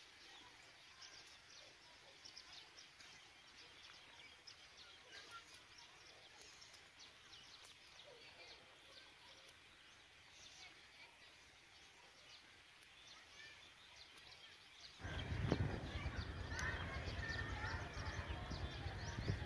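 Faint open-air ambience with scattered small bird chirps. About fifteen seconds in, a loud, rough rumbling noise starts suddenly and carries on to the end.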